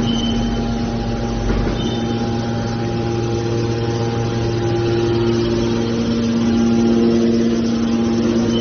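Hydraulic scrap metal baler's power unit running, its motor and hydraulic pump giving a steady hum.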